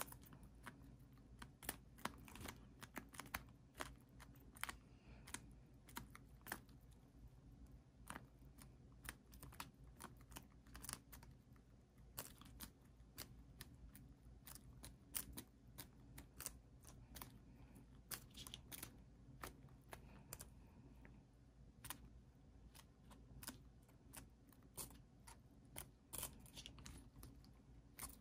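Serama bantam roosters pecking and tearing at napa cabbage leaves: a rapid, irregular run of sharp beak clicks and snaps, several a second.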